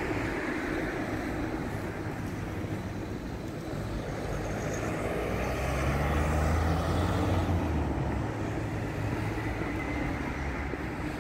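A van drives past, its engine and tyre noise building to loudest about six seconds in and then fading away, over a steady background hiss of street noise.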